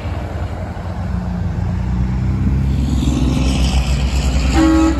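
Vehicle engine running and rising in pitch as it accelerates. About four and a half seconds in, a Kenworth T660 semi's Grover 1609 air horn starts blowing a steady chord of several tones, the loudest sound.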